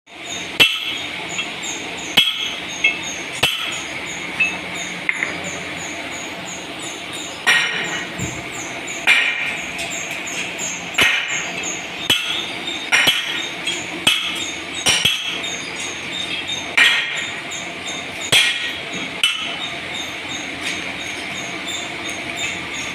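Sharp metallic clinks and knocks of metal striking cast iron, at uneven spacing of about one to two seconds, over a steady, quickly repeating high-pitched mechanical chatter.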